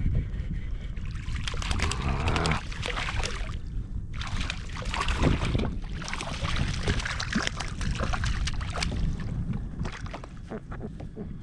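Water sloshing and splashing against a kayak hull in a light chop, with many small crackling splashes. A steady low rumble of wind runs on the microphone throughout.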